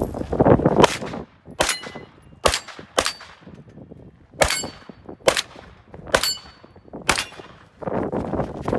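A string of about seven gunshots, unevenly spaced half a second to a second and a half apart, with steel plate targets ringing after the hits.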